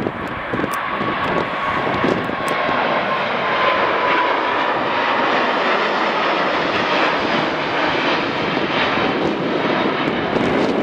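Airbus A350's Rolls-Royce Trent XWB turbofans at takeoff thrust as the airliner climbs out overhead: a loud, steady rush of jet noise with a faint whine that slowly falls in pitch.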